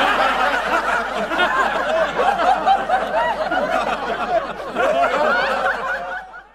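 Many people laughing at once, fading out near the end.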